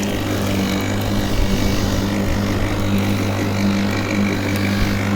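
Worx 40 cm cordless battery lawnmower running steadily while cutting grass: a steady electric-motor hum with a faint high whine over the noise of the spinning blade.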